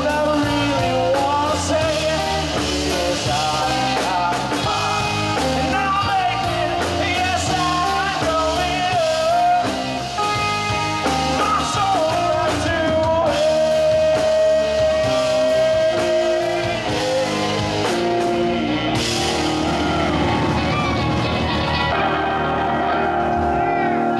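Live rock band playing: a man singing over electric guitars and a drum kit, with one long held note midway; the singing stops near the end while the band plays on.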